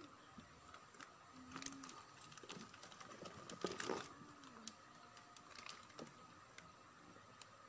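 Faint clicks and rustling of bagged plastic kit parts being handled, with a brief louder cluster of clicks about four seconds in.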